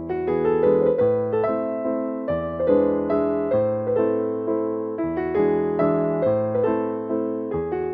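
Background piano music: a steady run of notes over a bass line that changes every second or so.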